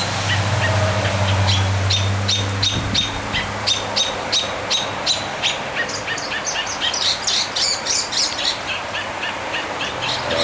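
Small bird giving short, sharp chirps over and over, about three a second, coming faster and higher near the end. A steady low hum sits underneath for the first few seconds.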